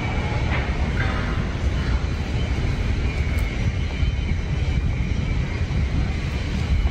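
Steady low engine rumble with a hiss of wind or water over it.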